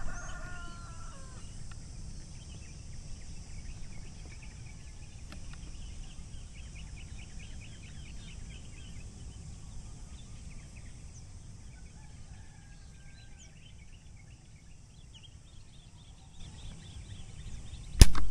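Rural background with faint bird calls, including a quick run of repeated chirps through the middle, then near the end a single sharp shot from a pump-pneumatic air rifle (homemade 'uklik') firing a 13-grain slug.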